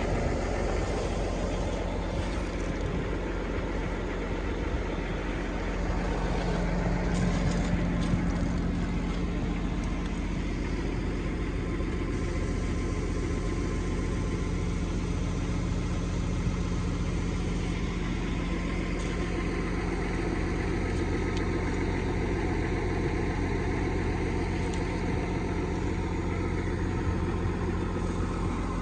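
Belarus 2011 utility tractor's diesel engine idling steadily.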